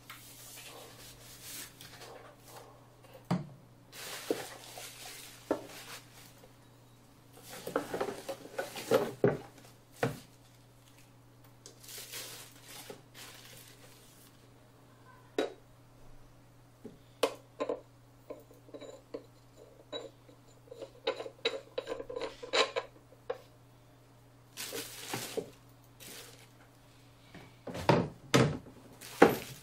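Hand unpacking of a microscope kit: irregular rustling of foam sheet and plastic wrap, with sharp knocks and clinks as the metal stand parts are handled. A cluster of louder knocks near the end as the stand's base with its metal pole is set on the wooden tabletop. A steady low hum runs underneath.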